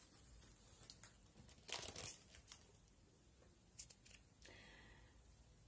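Quiet room with faint rustling and crinkling, one louder rustle about two seconds in and a few soft clicks.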